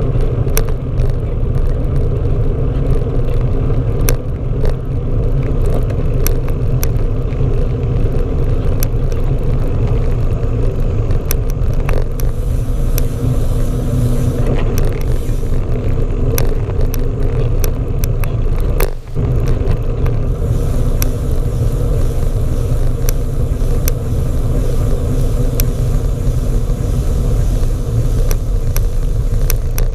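Wind and road rumble on a GoPro Hero4 solidly mounted to a moving bicycle's seat, with frequent small clicks and rattles from the bike carried through the mount. The steady rumble dips briefly about two-thirds of the way through.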